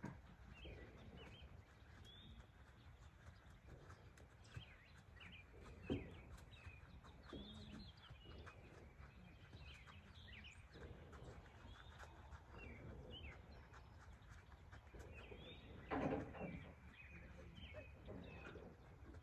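Faint outdoor birdsong: many short, scattered chirps over a steady low rumble of wind or background noise, with one louder, fuller sound of about half a second near the end.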